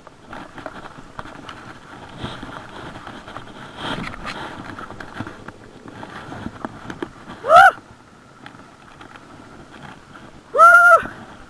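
Footsteps scuffing and brushing through dry grass and loose soil on a steep bank, with small clicks and rustles throughout. Two loud, short, high cries cut through, one rising about seven and a half seconds in and one held for about half a second near the end.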